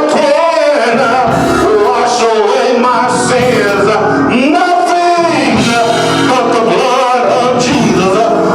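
Gospel music with a man singing in long, gliding phrases over the accompaniment.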